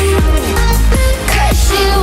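Background music: a song with heavy bass and drum hits.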